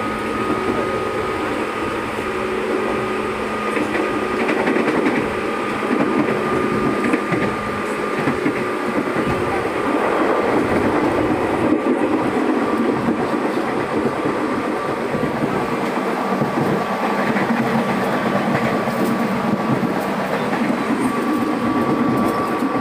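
KRL electric commuter train running at speed, heard from inside the carriage: a steady rumble of wheels on rail with a steady high hum running through it.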